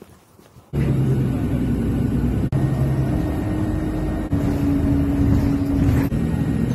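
Car driving, heard from inside the cabin: steady engine and road noise that starts suddenly under a second in, with a low engine hum that shifts in pitch a couple of times.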